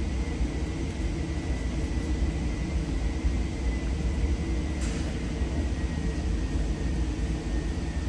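Steady low rumble of an indoor shooting range's ventilation system, with a faint high whine that fades out about halfway through.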